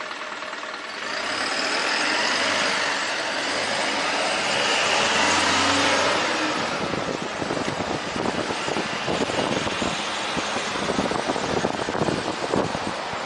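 A motor vehicle passes close by, its engine and tyre noise swelling from about a second in and fading after about six seconds. Then wind buffets the microphone of the bicycle-mounted camera in gusts.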